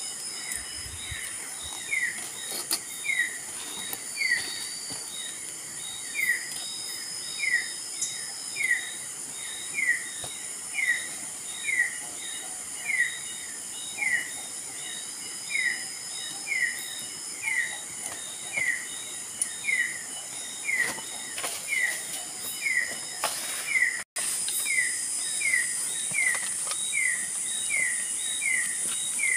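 Forest ambience: a bird's short falling call repeated evenly, about one to two a second, over a steady high-pitched insect drone and a faint rushing haze from the waterfall. The background grows a little louder after a brief break near the end.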